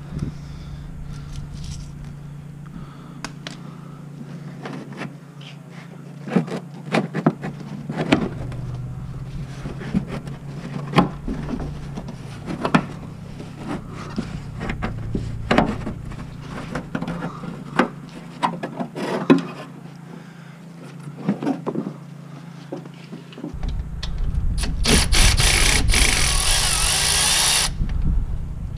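A plastic fender liner being worked out of a truck's wheel well by hand: scattered clicks, knocks and rubbing of plastic on metal. Near the end a cordless power tool runs for about three seconds, spinning out a fastener.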